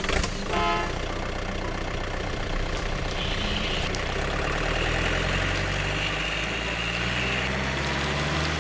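Loaded transporter truck's engine running steadily as it sets off, with a brief higher tone about half a second in.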